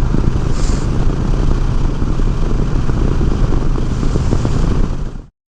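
Honda Rebel 1100 DCT's parallel-twin engine running steadily on the move, with wind rushing over the microphone; it cuts off abruptly near the end.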